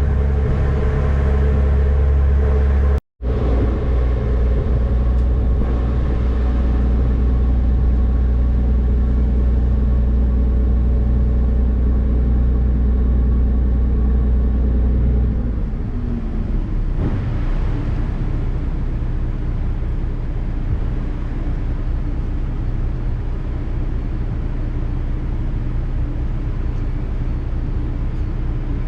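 Passenger ferry's engines running with a steady low drone and hum over wind and water noise. The sound cuts out completely for a moment about three seconds in. About halfway through, the deep hum drops away, leaving a rougher, lighter rumble.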